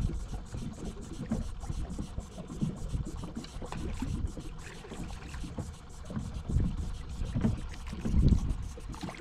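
Small fishing boat moving slowly on open water: a low, uneven rumble of wind and water around the hull.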